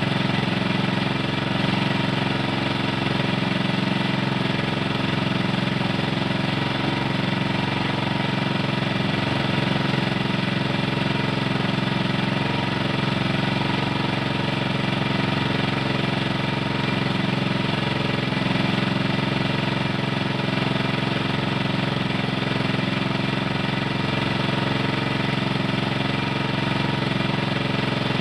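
Small engine running steadily at a constant speed, with an even, unchanging hum.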